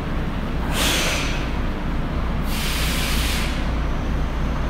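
Tokyo Metro 02 series subway train standing at the platform, letting compressed air out in two hisses of about a second each, over a steady low hum.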